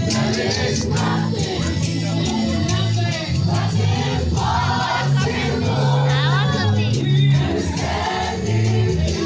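Gospel praise music: a choir of voices singing over a bass line, with a steady beat of light percussion.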